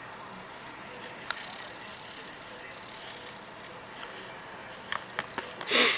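A few light clicks and taps from small plastic phone parts being handled, over a low steady hiss, with a louder short sound near the end.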